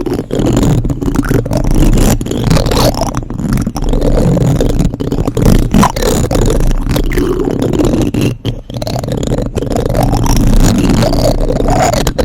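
Plastic spoons rubbed and scraped directly on a microphone, a close, continuous scraping and rustling with brief pauses.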